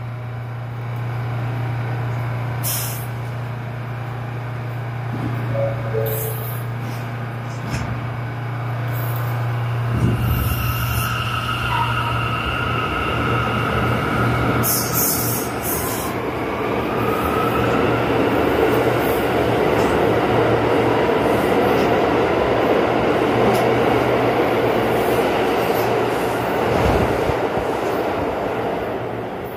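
New York City subway train moving through the station: a steady low hum, then from about ten seconds in the running noise of the train builds, with high wheel squeal for several seconds, and eases off near the end.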